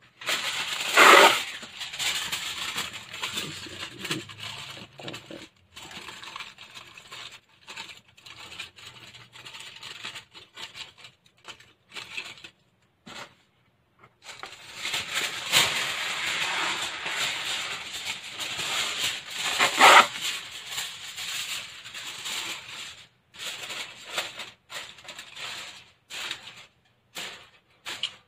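Aluminium foil crinkling and rustling as it is handled and crumpled over a roasting pan, in uneven bursts with short pauses. The loudest crackles come about a second in and again near the twenty-second mark.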